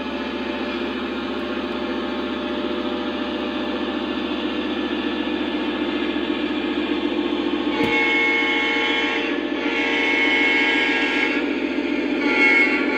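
Lionel Legacy O-gauge SD70ACe diesel locomotive models' onboard sound system: a steady diesel engine rumble as the train rolls closer. About eight seconds in, the horn sounds two long blasts and a short one, with a fourth blast beginning at the end, the start of a grade-crossing horn pattern.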